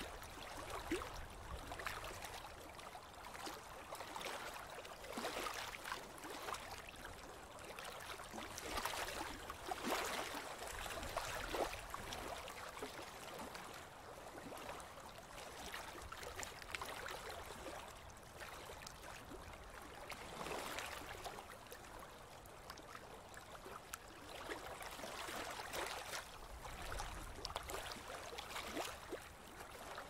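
Small waves on a wide river lapping and splashing, the water sound swelling and easing every few seconds, with a low rumble now and then.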